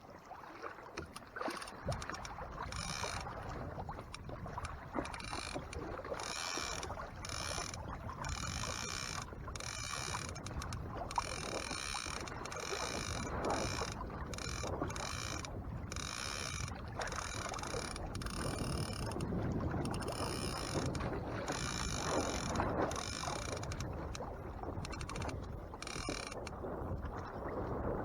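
A trolling reel's ratchet clicks in repeated bursts of up to a second each while line is worked to reset a Dipsy Diver. Under it there is a steady rush of water and wind around the kayak.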